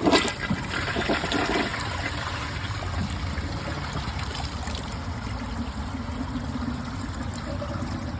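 2018 Mansfield Summit dual flush toilet flushing: a sudden start as the flush opens, loudest for about the first two seconds, then a steady run of water. A rag in the bowl clogs the trapway, where the owner says porcelain defects catch it.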